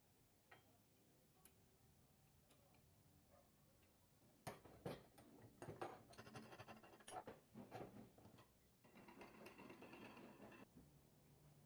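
Quiet workshop handling sounds: a few faint clicks, then a run of knocks and clatter from about four seconds in. Near the end comes a steady sound lasting nearly two seconds that stops abruptly.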